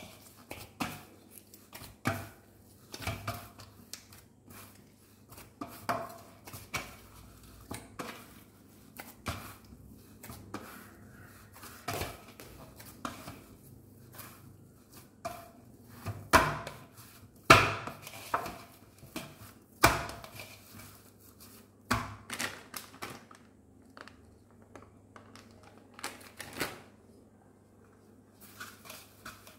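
Dough being kneaded by hand in a large stainless steel plate: irregular knocks and thuds of the dough pressed and pushed against the steel, about one a second, a few louder than the rest.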